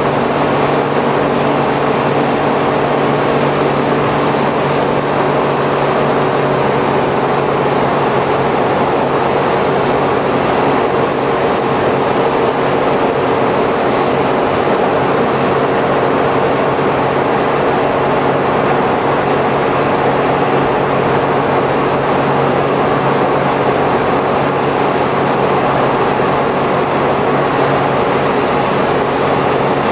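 Interior running noise of a Suzuki Every kei van with Auto Gear Shift cruising at a steady speed: a steady engine and drivetrain hum under a constant hiss of tyres on a wet road.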